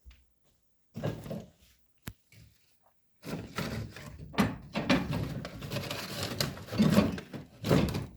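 Knocks, thumps and rustling of firewood and tissue being handled at a fireplace, with a single sharp click about two seconds in and a busier run of knocking and rustling from about three seconds on.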